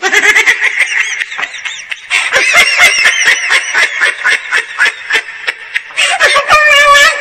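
A comedy sound effect playing loudly: a fast run of short, high-pitched calls that bend up and down, starting abruptly, with a longer wavering note near the end.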